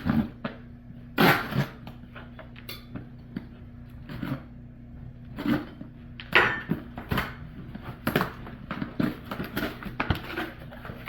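Plastic storage containers being handled and set down: a run of irregular knocks and clatters, over a faint steady hum.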